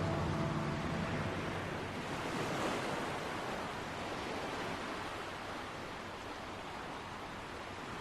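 Ocean surf: a steady wash of waves breaking on the shore, swelling slightly about three seconds in and then easing off.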